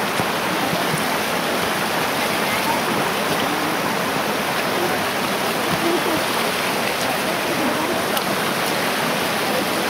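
Shallow woodland stream running over stones and small drops: a steady noise of flowing water.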